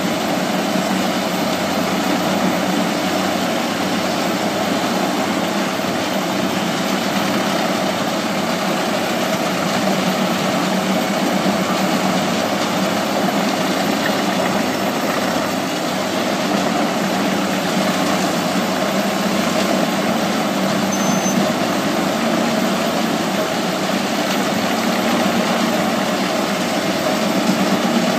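Eschlböck Biber 84 wood chipper, driven by a Fendt 939 tractor, running steadily while it chips whole conifer tree tops fed in by its crane. The tractor engine runs under load beneath a continuous grinding roar with a steady hum.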